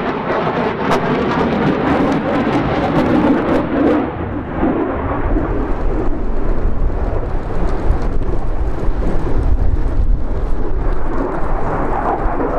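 F-15 Eagle's twin jet engines running loud through a high-G turn, with a sharp crackle over the noise for the first four seconds or so. The crackle then fades and the sound settles into a deep rumble.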